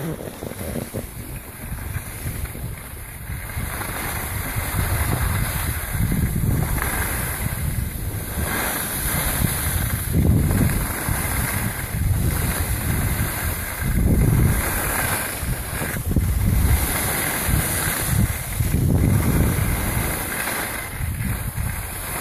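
Wind buffeting the microphone of a camera carried while skiing downhill, in gusty low rumbling swells, over the steady hiss of skis sliding on groomed snow.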